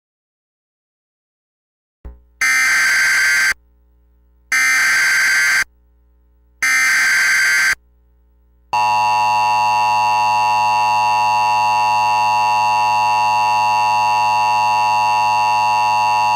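Emergency Alert System header for a severe thunderstorm warning. About two seconds in come three short bursts of data tones about a second each, followed by the long steady attention tone, which lasts about eight seconds.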